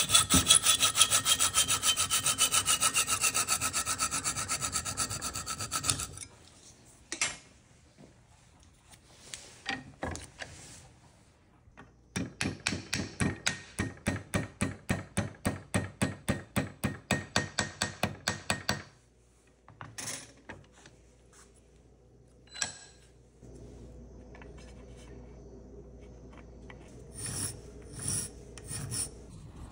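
Hacksaw cutting a small brass plate clamped in a steel bench vise: fast, even strokes for about six seconds, the blade ringing. After a pause come more runs of steady back-and-forth strokes, and near the end a flat file rasps across the cut edge of the brass.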